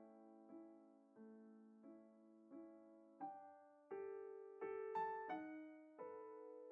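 Quiet background piano music: gentle notes and chords struck at a slow, even pace, about three every two seconds, each ringing and fading away.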